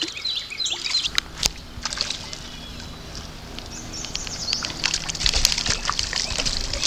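A hooked trout splashing at the water's surface as it is pulled in, amid a run of sharp clicks and knocks, over the steady wash of the creek.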